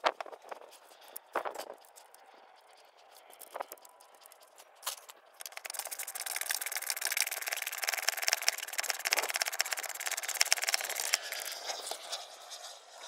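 A few light knocks of tools on metal, then a ratchet wrench clicking rapidly and steadily for about seven seconds as it runs down the nut on the new shock absorber's upper mount.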